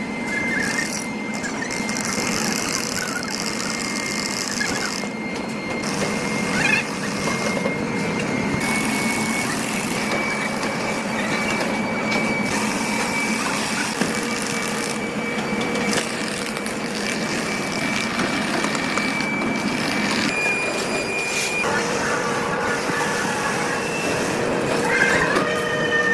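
Heavy factory machinery running with a dense mechanical noise and a steady high-pitched whine over a lower hum; the sound changes abruptly at several points.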